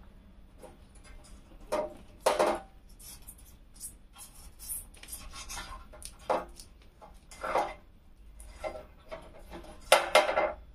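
Kittens scuffling over loose pebbles, with claws scratching and stones rattling in short, irregular bursts. The loudest bursts come near the end.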